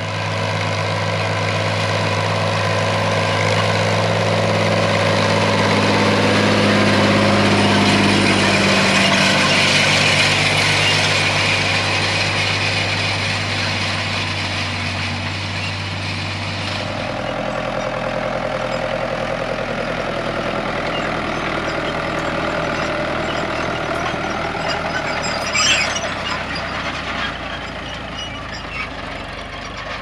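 A FiatAgri 70-90 tractor's four-cylinder diesel engine runs steadily under load while pulling a row-crop cultivator between maize rows. Its note changes about halfway through, and there is a short knock near the end.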